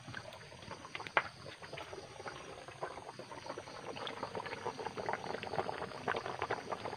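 A large aluminium pot of thick coconut milk with wrapped taro-leaf bundles boiling hard. It makes a dense bubbling and popping that grows louder toward the end, with a single sharp knock about a second in.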